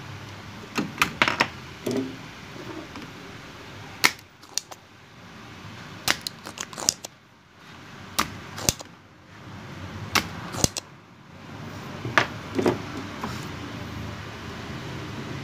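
Irregular sharp clicks and knocks from a mixer's circuit board and its plastic ribbon-cable connectors being handled and shifted, over a low steady background noise.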